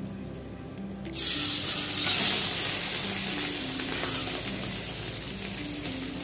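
Hot ghee and oil in an aluminium pot sizzling as boiled basmati rice is tipped in: the hiss starts suddenly about a second in and slowly dies down.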